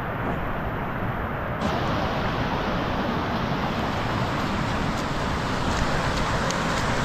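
Fast-flowing floodwater rushing steadily, a dense, unbroken noise that grows brighter about a second and a half in.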